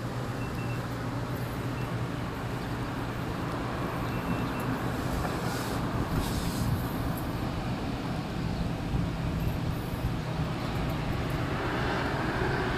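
Steady low hum of a vehicle engine running.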